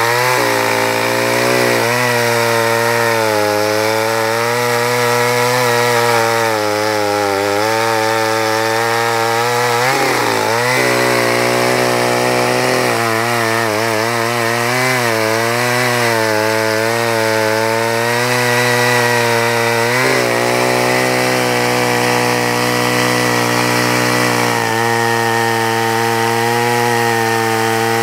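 Vintage McCulloch 895 two-stroke chainsaw cutting through a large log at full throttle, its engine pitch wavering up and down as the chain loads and eases in the wood. About ten seconds in the pitch drops sharply and recovers.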